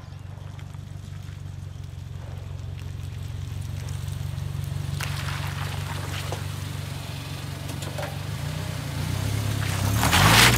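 A seven-seat Toyota SUV's engine running as it rolls slowly closer, growing louder, then a loud burst of crushing near the end as its tyre rolls over a pile of fruit.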